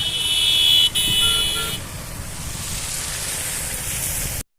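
A vehicle horn blares for about two seconds, broken once for a moment, over a steady low rumble of engine or wind noise. Then a hiss of noise builds, and the sound cuts off suddenly near the end.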